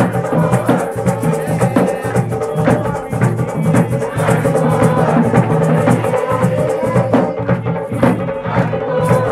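Music led by drums and percussion, with dense, rapid strikes over a sustained pitched backing, typical of orisha drumming.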